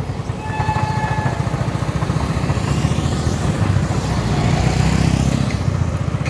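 Motorcycle engine running steadily at road speed, its quick even firing pulses under a hiss of wind and road noise. A brief faint high tone sounds about half a second in.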